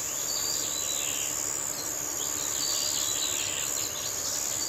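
Countryside ambience: insects, crickets or similar, keep up a steady high-pitched trill while birds chirp in short, scattered calls over it.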